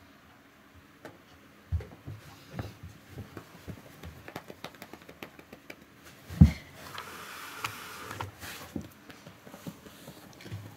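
Hands stroking and patting a cat's fur, with scattered soft pats and rustling. One much heavier thump comes about six seconds in.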